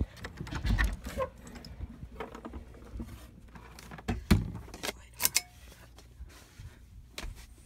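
Handling noise of a phone being moved about: rustling with scattered clicks and knocks, and a loud thump about four seconds in.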